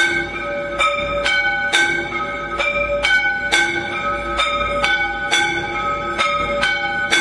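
Temple bells rung for aarti: several bells of different pitches struck over and over, about two strikes a second in an uneven rhythm, each note ringing briefly before the next.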